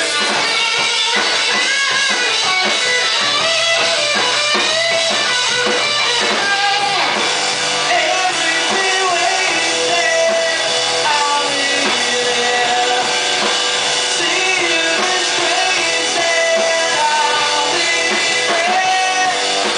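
Live rock band playing: electric guitar, electric bass and drum kit, with a male singer's voice over them.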